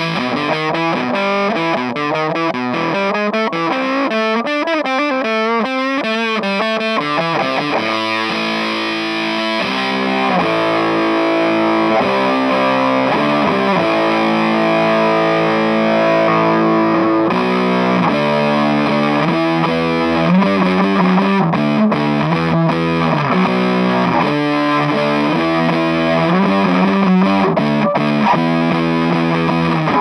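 Electric guitar played through an EarthQuaker Devices Park Fuzz Sound pedal, giving a raw, distorted fuzz tone. Wavering notes for the first several seconds give way to longer held notes and chords after about eight seconds.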